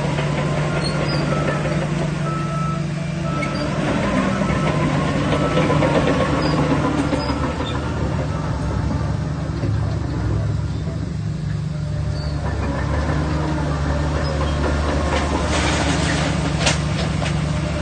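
Diesel engine of a Shantui DH17 bulldozer running steadily while working, its note shifting slightly, with a few short high squeaks early on and a few sharp clicks near the end.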